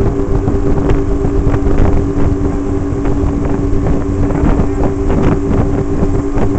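Motorboat engine running at steady cruising speed, a constant drone over the rumble of the hull and water, with wind buffeting the microphone.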